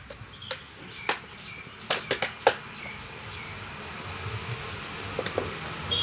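A clear plastic bottle handled and knocked against the ground: a handful of sharp clicks and knocks clustered around two seconds in, the loudest about halfway through. Faint short high chirps sound in the background.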